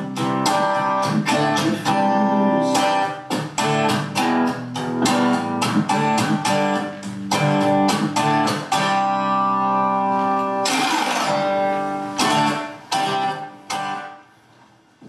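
Background music of a strummed guitar with a steady rhythm, fading out near the end.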